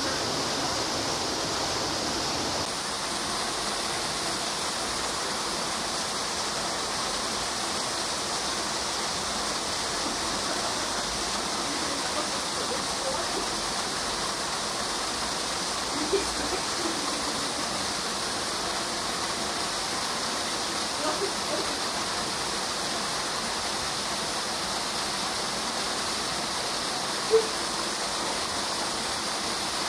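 Steady outdoor rushing noise, much like running water, with a few faint brief sounds over it; the sharpest comes near the end.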